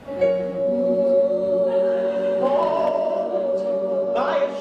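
Musical-theatre song: a long, steady held chord with a man's singing voice rising over it in the second half.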